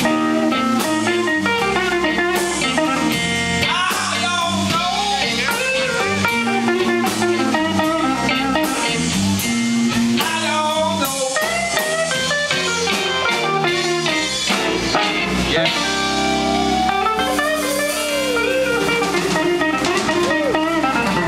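Live electric blues band playing: hollow-body electric guitar, a second guitar, bass and drum kit, with a woman singing lead.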